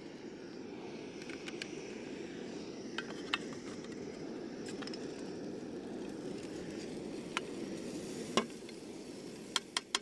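Food sizzling in a frying pan over a steady rushing background, with a few sharp clinks of a utensil against the pan, the loudest about eight seconds in and a quick run of three near the end.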